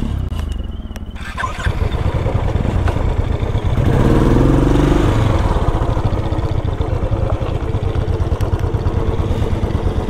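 Motorcycle engine running on the move, with a steady rushing noise over it. About four seconds in, an engine note rises and swells briefly before settling back.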